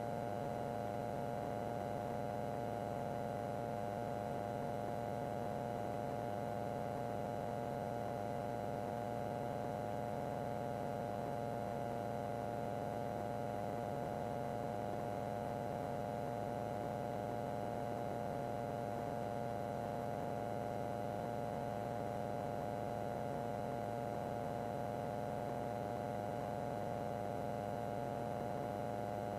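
Steady electrical hum with several fixed, unchanging tones on a light aircraft's intercom audio feed, with no engine or propeller noise standing out.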